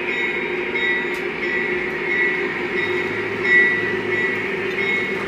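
Lionel O-gauge GE Evolution Hybrid model locomotive running slowly around the track, its onboard diesel sound effects mixed with the hum of its motors and wheels. A high tone pulses about every 0.7 seconds, and a low hum joins about halfway through.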